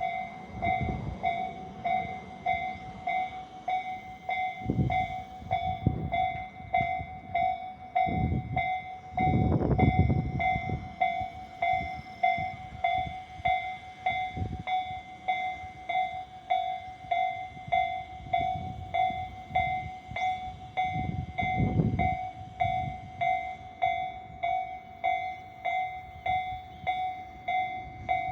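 Japanese railway level-crossing alarm ringing its electronic 'kan-kan' bell tone over and over at a slow, even tempo; this is the newer slow-tempo crossing sound that replaced the crossing's older, louder alarm. Low rumbles and thumps come and go underneath, loudest about ten seconds in and again a little past twenty seconds.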